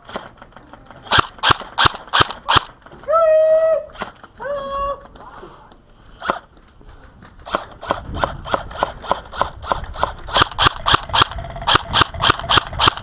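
Airsoft guns firing single shots: a handful of sharp pops in the first few seconds, then steady fire at about three to four shots a second through the second half. Two short pitched calls sound about three and five seconds in.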